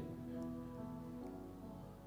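Soft live worship music under a prayer: a keyboard holding quiet sustained chords, moving to a new chord about halfway through.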